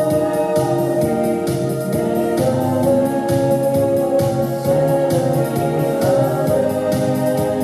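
Organ-style keyboard music: held chords over a steady beat.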